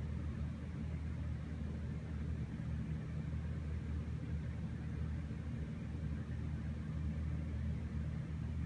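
A steady low rumble that holds an even level throughout.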